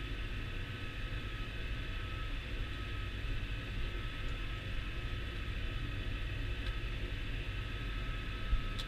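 Massey Ferguson 6480 tractor driving on the road, heard from inside the cab: a steady engine rumble with a steady high whine over it. A short click near the end.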